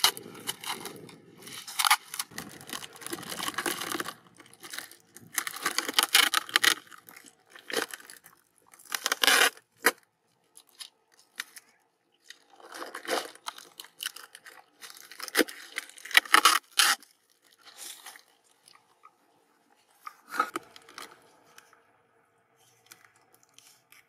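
Clear packing tape pulled off the roll, and a plastic bag and cut plastic bottles crinkling and scraping as they are handled. The sounds come in a series of irregular rasping bursts with short pauses between them.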